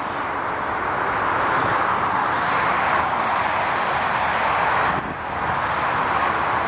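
Steady rushing noise of motorway traffic passing close by, with a brief dip about five seconds in.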